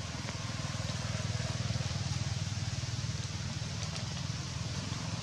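Low, steady hum of a motor vehicle's engine running, slowly getting louder, over a steady hiss.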